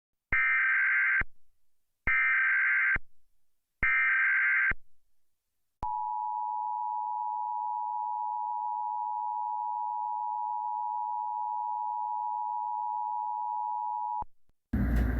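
Emergency Alert System signal: three short bursts of the warbling SAME header data tones, then the steady two-tone EAS attention signal held for about eight and a half seconds, marking the start of an emergency alert.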